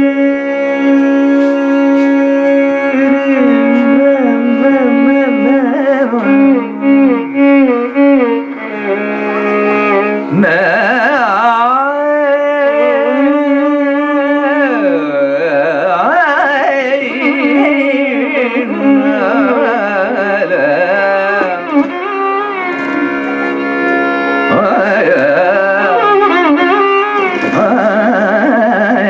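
Carnatic vocal and violin performing in raga Poorvakalyani over a steady drone, the melody full of sliding ornaments.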